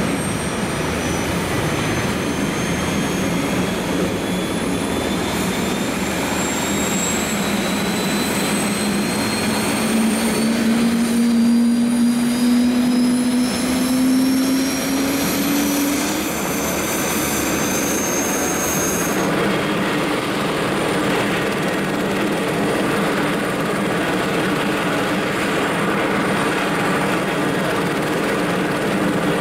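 Airbus H130 helicopter starting up on the ramp: the turboshaft whine climbs steadily in pitch as the engine spools up and the rotor gains speed, with a strong low hum rising with it. About two-thirds of the way through, the sound cuts abruptly to another H130 running steadily on the ground.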